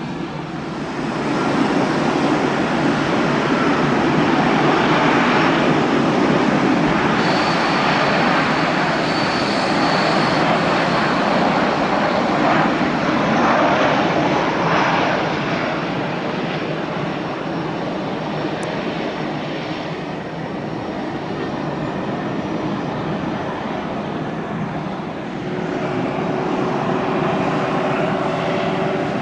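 Jet airliner landing: loud engine noise swells in about a second in and stays strong, with a high whining tone for a few seconds partway through, then eases off. About 25 seconds in, a second jet's engines grow louder with a steady low hum as it begins its takeoff.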